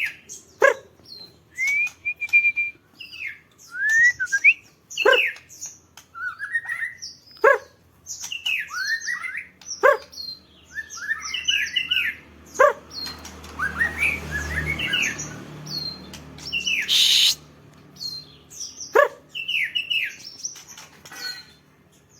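Songbird chirping and singing in short whistled phrases broken by sharp calls, with a low rumble about two-thirds of the way through and a brief rustling burst near the end.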